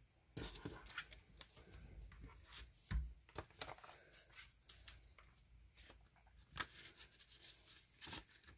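Faint handling of paper and cards: a paper envelope and note rustling, with scattered light taps and clicks and a soft thump about three seconds in.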